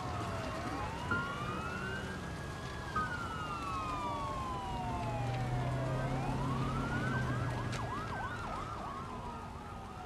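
Emergency vehicle sirens wailing, one pitch slowly rising and falling twice, with fainter overlapping siren sweeps and a low hum through the middle.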